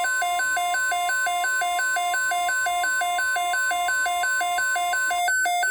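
Weather radio alert: the steady 1050 Hz NOAA Weather Alert Tone with an electronic alarm over it, alternating between a low and a high beep about three times a second. The steady tone cuts off about five seconds in while the alternating beeps run on, heralding a severe weather message.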